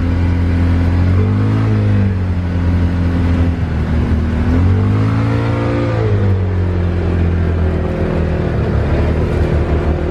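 Polaris Ranger side-by-side engine pulling down a gravel road, heard from inside the cab. Its pitch rises twice as it speeds up, about one and five seconds in, then settles into a steady run.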